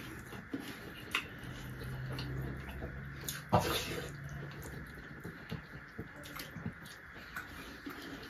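Eating rice and chicken by hand: fingers mixing and squishing soft rice on plates, with scattered small mouth clicks and chewing. A sharper click comes about three and a half seconds in.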